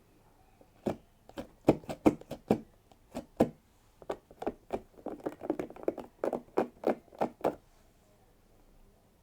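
A run of sharp taps and knocks, about two to three a second, starting about a second in and stopping near the end, with a quicker cluster in the middle.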